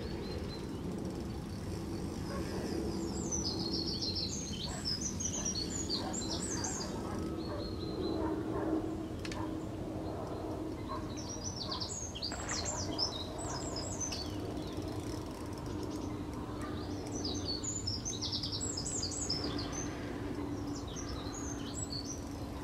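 Songbirds singing in three bouts of quick, high chirping notes, over a steady low background rumble with a faint constant hum.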